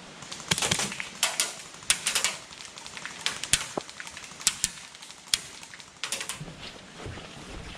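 Airsoft guns firing: irregular sharp cracks, single shots and short quick clusters, some louder and some fainter.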